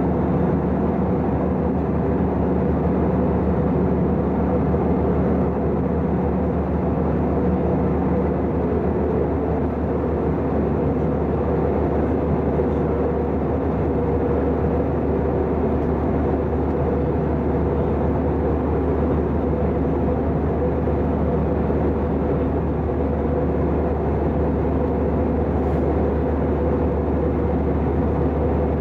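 Steady in-flight cabin drone of an Airbus A320-214 heard beside its wing-mounted CFM56-5B engine: even engine and airflow noise with a low hum underneath, one low tone fading out about nine seconds in.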